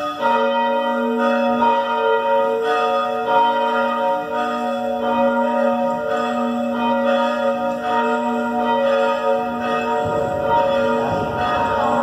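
Church bells rung by hand from bell ropes, struck again and again in an irregular overlapping peal so the tones ring on without a break. A rougher noise rises underneath near the end.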